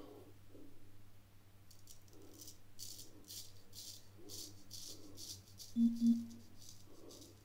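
Drew Dick 8/8 straight razor scraping through lathered stubble in a series of short strokes. About six seconds in, a phone vibrates with two short low buzzes.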